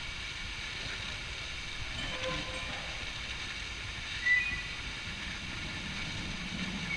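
1921 Peter Witt streetcar approaching along the track, its low running rumble growing from about five seconds in. A short high-pitched sound about four seconds in is the loudest moment.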